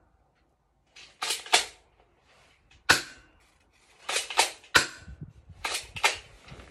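BB gun firing and being worked: a string of about eight sharp cracks, some coming in quick pairs, with short quiet gaps between them.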